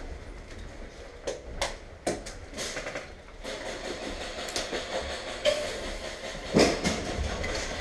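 Footsteps of two people walking on a littered tile floor, with irregular sharp clicks and knocks that get louder near the end.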